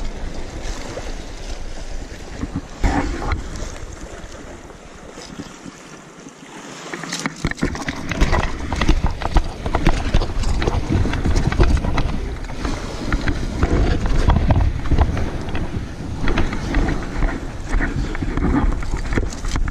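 Wind buffeting the microphone of a body-worn camera over waves washing against sea rocks. From about eight seconds in come louder handling noise, clothing rubbing and steps on rock as the angler climbs the shore with the hooked fish.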